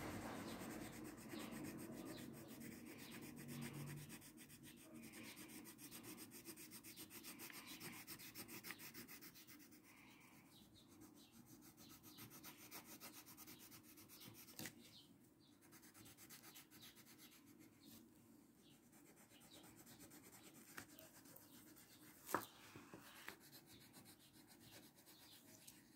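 Faint scratching of a purple colouring pencil rubbing back and forth on paper as hair is shaded in. The strokes grow fainter about ten seconds in, and there is one short tap near the end.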